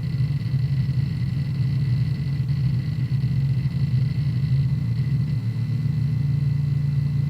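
Hard disk drive's heads seeking continuously while the drive is defragmented: a dense, rapid low chattering rumble that goes on without pause, with faint steady high tones above it.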